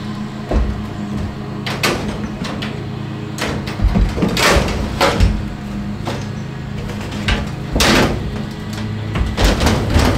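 Aluminum window frame knocking and scraping against the opening in a corrugated-metal wall as it is pushed into place, several separate knocks, the loudest about four and a half and eight seconds in. A lawn mower drones steadily underneath.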